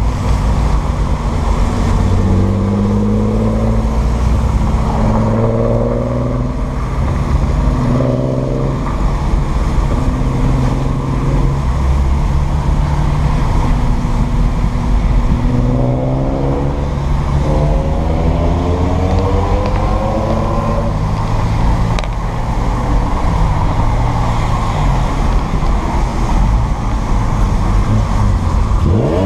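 Alfa Romeo 164 Super's 3.0 24-valve V6 engine running loud, its pitch climbing several times under throttle, with the longest climb in the second half and a low rumble between.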